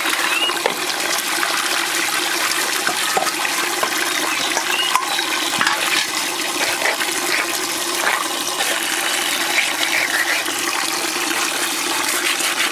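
Water splashing steadily as it is poured over climbing perch in a steel colander and the fish are rinsed by hand, with small knocks and clinks through it.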